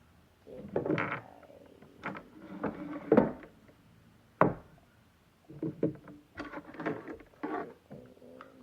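Plastic toy packaging being handled and set in place: irregular rubbing and knocking, with a single sharp click about halfway through.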